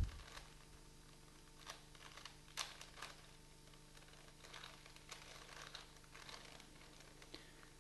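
Faint, irregular clicks of a 4x4x4 Rubik's cube's plastic layers being turned by hand.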